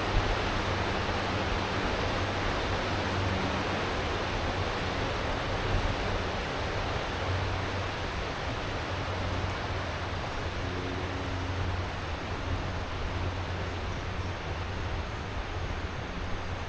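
Steady rushing of a river's water, an even full hiss with a low rumble underneath that swells and eases.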